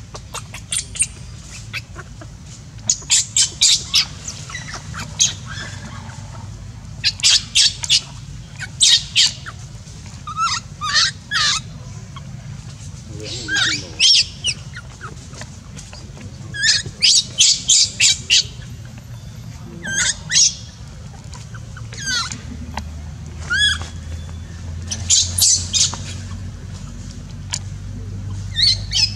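Infant macaque screaming in distress: shrill, high-pitched cries in quick clusters of several calls, some with a rising or falling squeal, repeating every second or two.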